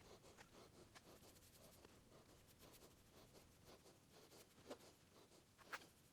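Near silence: faint, repeated scratchy strokes of rust encapsulator paint being brushed onto bare sheet metal, with two light clicks near the end.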